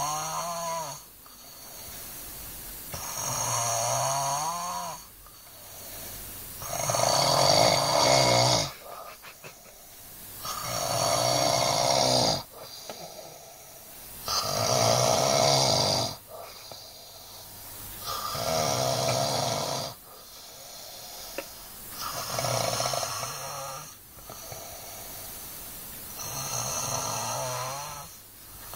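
A heavyset person snoring. Each long snore lasts about two seconds, and they come regularly every three to four seconds, with quieter breaths in between.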